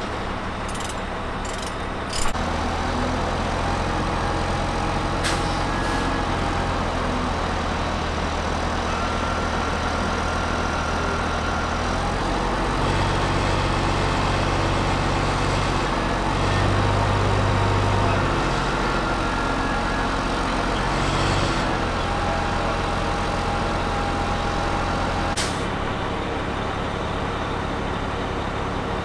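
Diesel engine of a rough-terrain container handler running under load as its boom lifts a helicopter fuselage: a steady drone that steps up with a click about two seconds in, works harder for several seconds in the middle of the lift, and eases back down near the end.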